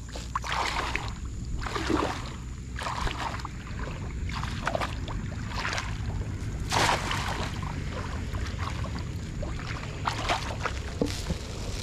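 Shallow water splashing and sloshing every second or two, the loudest splash about seven seconds in, over a steady low rumble.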